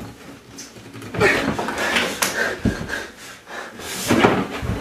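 Irregular clattering and knocking of objects handled on a kitchen countertop, with sharp clicks and a dull thud about halfway through.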